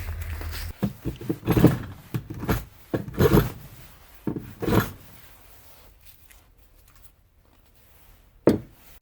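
Irregular thumps and knocks with some rubbing in the first few seconds, then a quieter stretch and a single sharp thump near the end.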